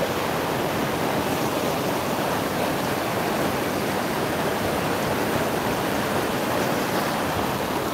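Fast mountain stream rushing over boulders in whitewater: a steady, even rush of water with no breaks.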